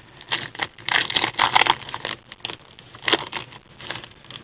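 Trading cards being handled and slid through by hand, with irregular rustling, scraping and crinkling.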